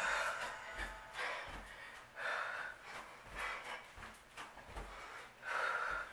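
A woman breathing hard in sharp exhales about every second or two while doing lunges, with soft thuds of her feet landing on carpet between breaths.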